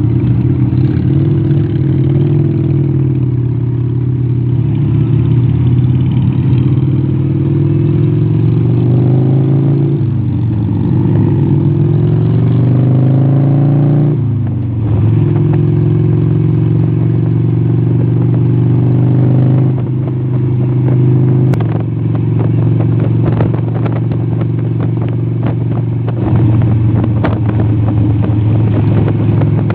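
Cruiser motorcycle engine heard from the rider's seat, pulling away and accelerating through the gears with the pitch climbing and dropping at two upshifts about ten and fourteen seconds in, then running steadily at cruising speed.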